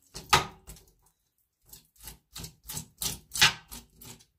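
A quick, irregular series of sharp knocks and clicks, about a dozen in all, loudest about a third of a second in and again just past the middle.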